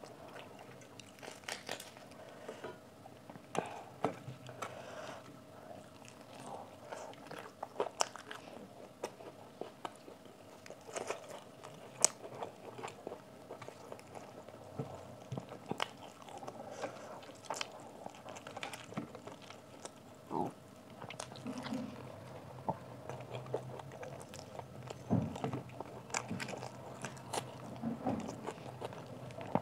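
Close-miked eating sounds: chewing and biting as a person eats puri flatbread with curry and rice by hand, with many short, sharp crunches and clicks scattered throughout.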